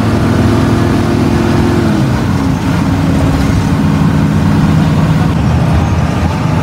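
Intercity bus's diesel engine and road noise heard from inside the cab while driving; the engine note drops about two seconds in, then runs steadily at the lower pitch.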